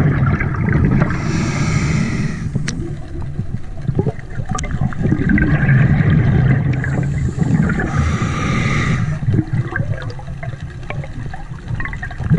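Scuba diver breathing through a regulator underwater: two breaths about six seconds apart, each a rush of air and bubbles, over a steady low underwater rumble.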